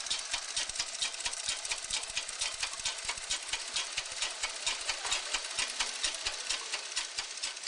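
Treadle sewing machine running steadily, its mechanism giving a rapid, even clicking, several clicks a second.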